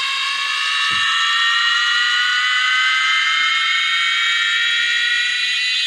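A high synthesized siren-like tone, the riser effect of a DJ sound-check track, held steady and slowly rising in pitch.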